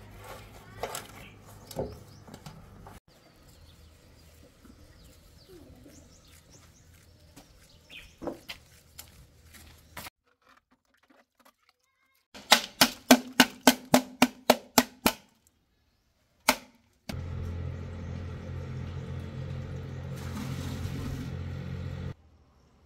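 Work sounds around steel concrete moulds and a mortar bucket: metal clinks as a mould clamp is handled, then a quick run of about ten sharp ringing knocks, about four a second, and later several seconds of steady rushing noise that cuts off suddenly.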